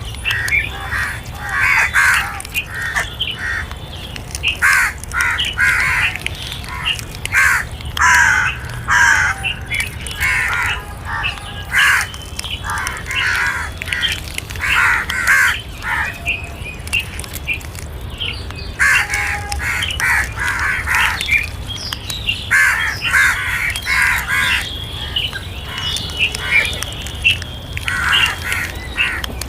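Crows cawing over and over, short harsh calls coming in quick runs, over a steady low rumble.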